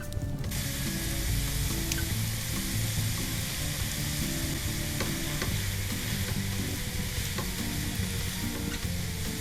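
Food frying in hot vegetable oil in a pan: a steady sizzle that starts suddenly about half a second in, with a few faint clicks of stirring.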